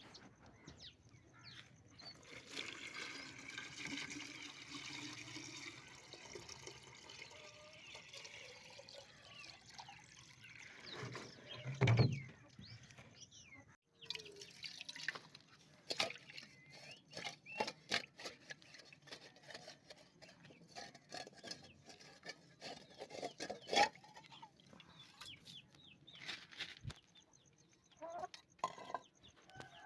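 Water pouring and splashing as a lota (water pot) is rinsed out and filled, with one loud knock a little before halfway and many short clicks and splashes in the second half.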